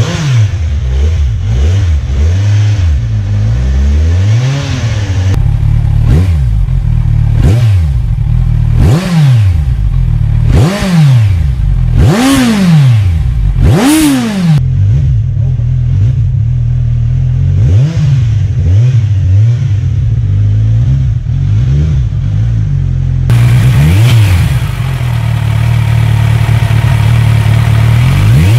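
Kawasaki Z1000 SX inline-four engines with aftermarket slip-on exhausts, including Akrapovic cans, idling and blipped in short, sharp revs, the pitch climbing and dropping back each time. Several different bikes are heard one after another, with a run of quick revs in the middle and another near the end.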